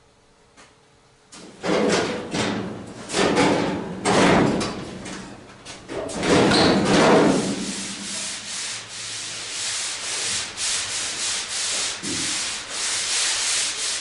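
Steel roof of a Ford F100 cab scraping and grating against the cab as it is shoved loose and slid back. The sound comes first as several rough scraping strokes, then as steadier, rattly scraping.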